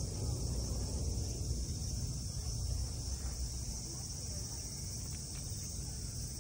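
Steady high-pitched chorus of insects such as crickets, unbroken throughout, over a low rumble.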